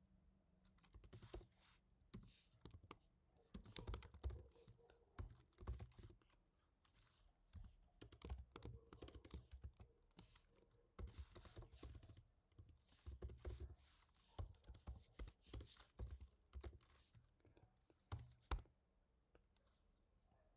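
Faint typing on a computer keyboard: irregular runs of keystrokes broken by short pauses.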